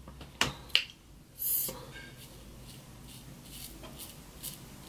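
Two light clicks from a small hair-product container being handled, then a short hiss about a second and a half in, followed by faint, soft strokes of a small edge brush along the hairline.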